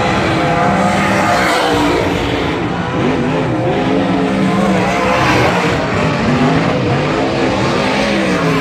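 Several dirt-track race car engines running around the oval together, loud and continuous, their pitches rising and falling as the cars accelerate down the straights and lift off for the turns.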